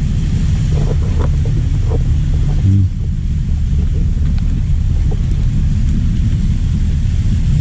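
Wind buffeting the microphone: a loud, steady low rumble with no clear pitch.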